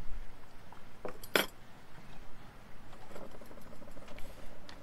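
Metal spoon clinking against an enamel bowl: two sharp clinks a little over a second in, the second the louder, then a few fainter taps.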